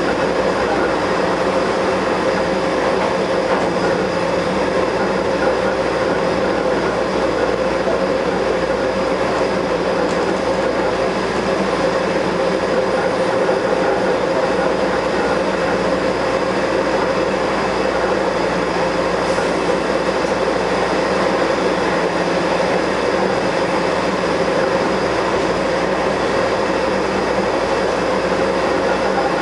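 Taipei Metro Wenhu line Bombardier rubber-tyred train running at steady speed, a continuous rumble with a steady whine of several held tones over it. This train is known for making an abnormal noise while running.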